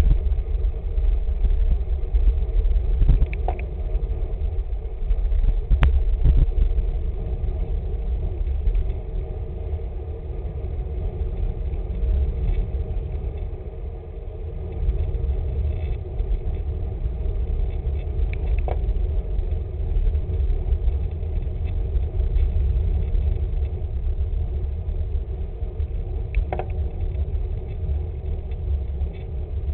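Wind rushing over the microphone of a camera riding on a moving road bike: a steady low rumble, with a few faint clicks scattered through it.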